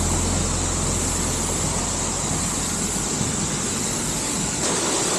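Steady rush of a waterfall pouring into a mountain creek, loud and even. A low hum underneath fades out a little over two seconds in.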